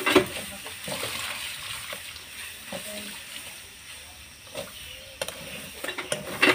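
Metal spatula stirring and scraping wet cooking greens in a metal pan, with a steady soft wet hiss and a few sharp clinks of the spatula against the pan at the start, about five seconds in and near the end.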